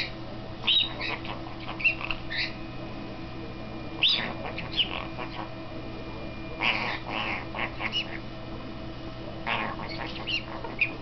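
White-capped pionus parrot jabbering: short squawks and chattering calls in clusters, with pauses of a second or two between them. A steady low hum runs underneath.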